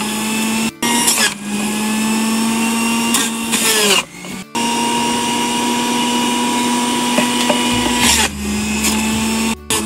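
Electric centrifugal juicer's motor running with a steady hum while beetroot and carrot pieces are pushed down the feed chute onto the spinning grater, with short louder rasping bursts as pieces are shredded. The hum dips in pitch under load and breaks off abruptly twice.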